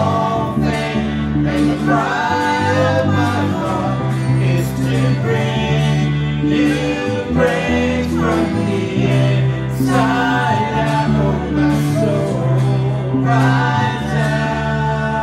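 Contemporary worship song: singing over a band with sustained bass notes and a steady beat.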